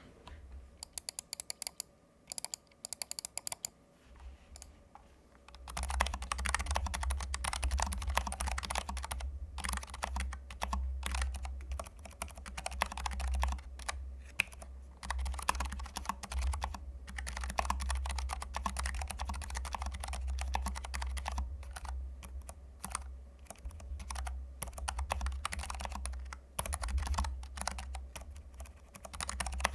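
Typing on a Keychron K7 low-profile mechanical keyboard fitted with Keychron Banana low-profile optical switches. A few separate keypresses come first, then from about six seconds in fast, continuous typing with the keys clacking and bottoming out on the desk.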